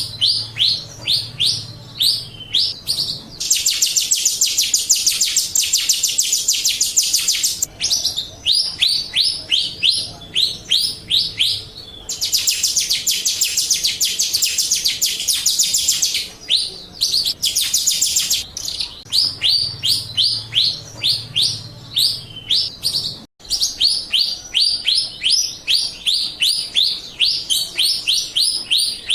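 A Jalak Rio starling singing: fast runs of short, repeated falling chirps, several a second, broken by long stretches of dense, harsh buzzing chatter.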